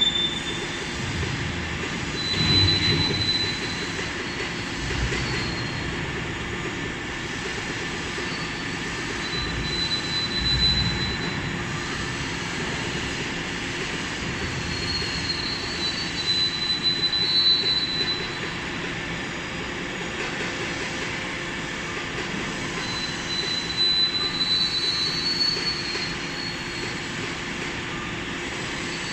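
Steady industrial machinery noise with intermittent high-pitched metallic squeals that come and go, and a few louder swells.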